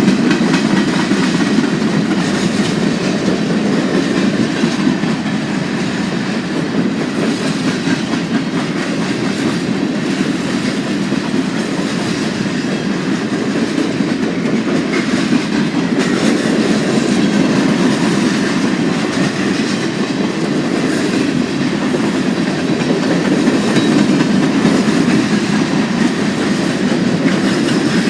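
Freight cars of a long freight train rolling steadily past on the rails, with no horn sounding.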